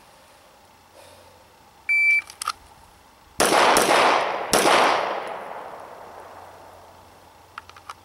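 A shot timer beeps once to start, and about a second and a half later a 9mm Smith & Wesson M&P Pro Series pistol fires a rapid string of shots drawn from the holster, the last one about 2.65 seconds after the beep. The shots echo and fade slowly for a few seconds afterwards.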